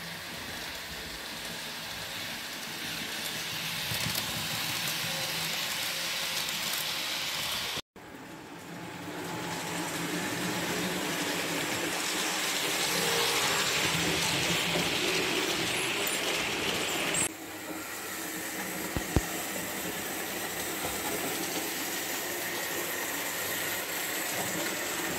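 Märklin model trains running on a layout: a steady whir and rattle of the locomotives' motors and wheels rolling on the track. The sound cuts out for an instant about eight seconds in and changes abruptly again near seventeen seconds, with one sharp click shortly after.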